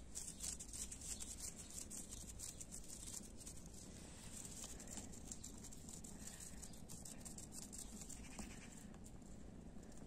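A kitten meowing faintly a few times in the second half, over a dense high crackling rustle that is loudest in the first few seconds.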